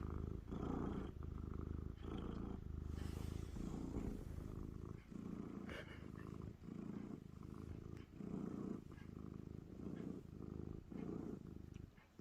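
Feral cat purring loudly and steadily, the purr swelling and easing with each breath about once a second.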